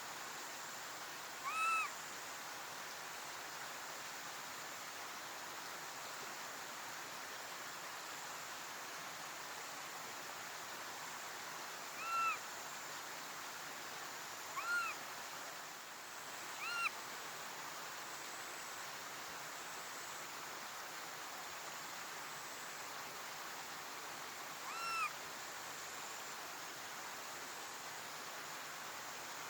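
Young Japanese macaque giving five short coo calls, each a brief high note that rises and falls, spaced irregularly over a steady background hiss.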